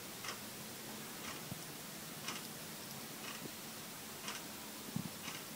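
Clock ticking steadily about once a second, with a faint steady hum and a few soft low knocks, the strongest near the end.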